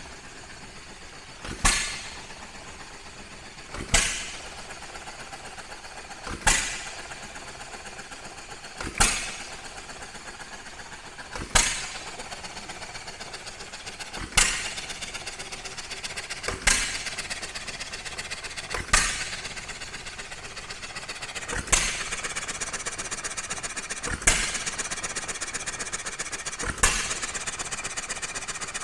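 John Deere Type E 3 hp hit-and-miss engine running on its governor: a sharp firing stroke about every two and a half seconds, with steady rapid clicking in between as it coasts on its flywheels.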